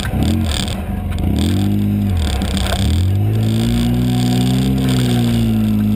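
Off-road vehicle's engine running under changing throttle, its pitch dipping and rising several times in the first three seconds, then steadier, climbing a little and easing off near the end.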